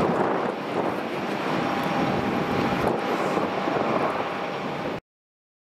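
Jet engines of a Turkish Airlines Airbus A321-200 on its landing roll: a loud, steady rushing noise, with a thin high whine joining about a second and a half in. The sound cuts off suddenly about five seconds in.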